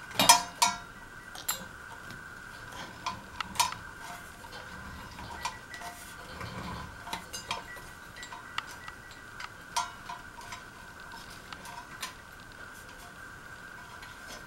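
Small metal parts and tools being handled during the fan's wiring: scattered sharp clicks, taps and clinks, a loud pair just after the start, over a faint steady high hum.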